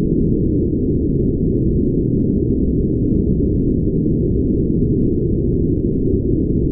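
Brown noise: a steady, even deep rumble of noise with nothing high-pitched in it and no change in level.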